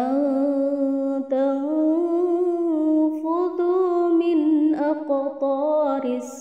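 Melodic Quran recitation: one voice chanting long, drawn-out notes with wavering melodic turns, broken briefly a couple of times.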